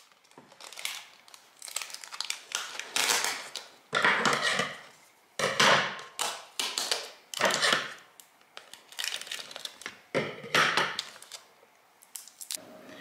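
Clear packing tape being pulled and torn off the roll in a run of short, noisy rips.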